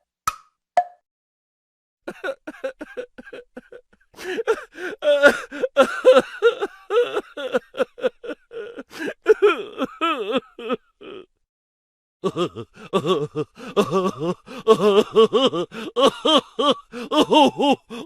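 Laughing sound effect: a long run of rapid, pitch-bending 'ha-ha' bursts, about five a second, that breaks off for about a second and then starts again. Two hollow wood-block knocks sound just before it, in the first second.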